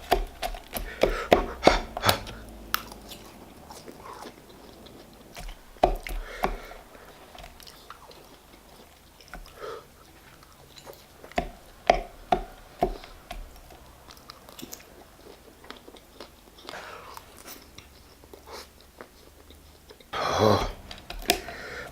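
Close-miked chewing and biting of a chicken burger with bacon, cheese and jalapeños: wet mouth clicks and scattered louder bites.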